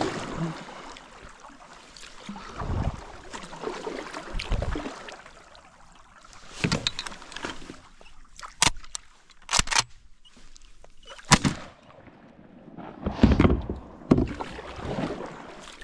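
Kayak paddle strokes in calm water from a sit-on-top kayak, coming in irregular swells, with a few sharp knocks of gear against the kayak around the middle.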